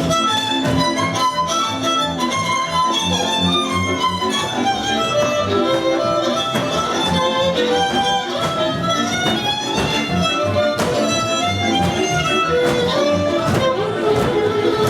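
Violin-led string music playing a lively melody over a steady rhythmic accompaniment.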